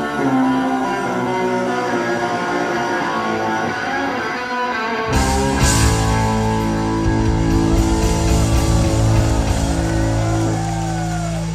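Live rock band with electric guitar playing single notes. About five seconds in, the full band crashes in on a loud held chord with drums, and the guitar bends notes over it.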